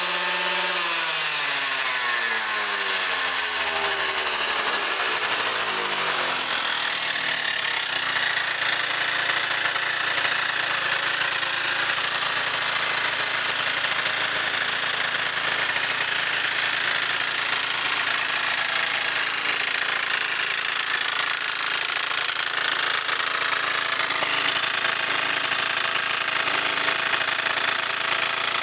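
Honda Live Dio AF35 scooter's two-stroke single-cylinder engine, its revs falling back over the first few seconds and then idling steadily. Over the idle runs a buzzing, wind-up-spring-like whir, the abnormal engine noise that the owner hears at idle.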